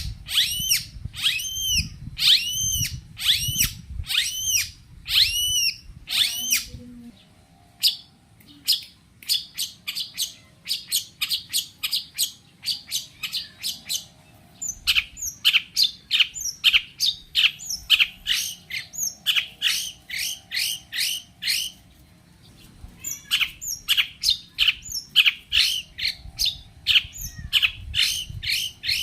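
Long-tailed shrike (cendet) in full, agitated song. It starts with repeated arching notes about two a second, then after a short pause goes into long quick runs of sharp falling notes, several a second.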